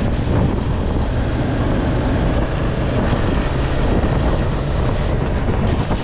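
A motorcycle at highway cruising speed: steady wind rush over the windscreen and microphone, mixed with engine and tyre noise.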